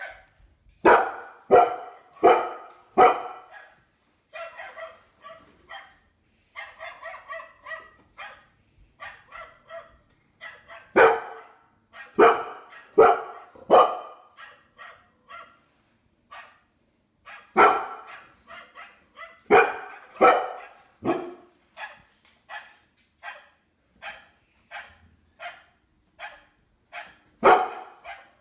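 Dogs barking over and over: loud barks come in clusters of two to four, and fainter, higher yaps fall between them.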